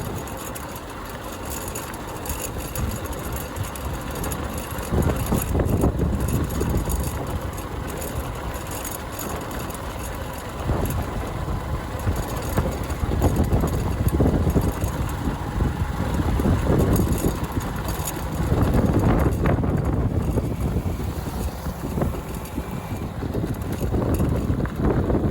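Motorcycle engine running while the bike is ridden on a rough road. The loudness swells and eases every few seconds.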